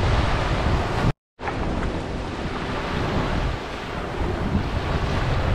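Gentle sea waves washing onto a sandy beach, with wind rumbling on the microphone. The sound cuts out completely for a moment about a second in, then resumes.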